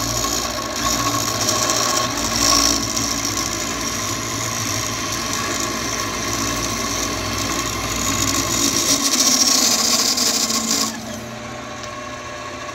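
Bridgeport milling machine running, its end mill taking a cut of about 40 thousandths off a steel shim under a rifle scope base, with a spray hissing onto the cut. The cutting noise stops suddenly about eleven seconds in, leaving the mill's motor running.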